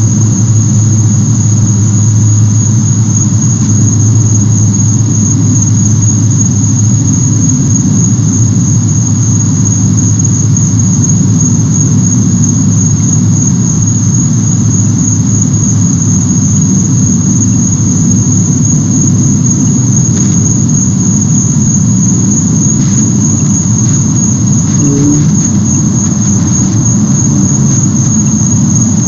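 A steady, loud machine-like hum with a constant high-pitched whine over it, unchanging throughout.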